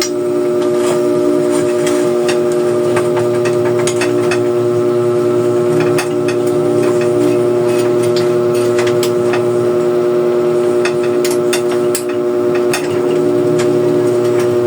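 A steady, fixed-pitch hum runs throughout, with scattered clicks and knocks of metal bicycle parts being handled and fitted.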